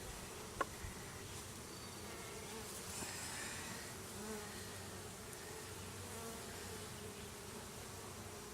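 Honeybees buzzing around an opened hive, a steady hum of many bees. A single sharp click about half a second in.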